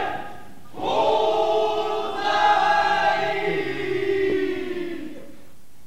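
A voice singing one long drawn-out note that starts about a second in, wavers, and sags in pitch as it fades away near the end.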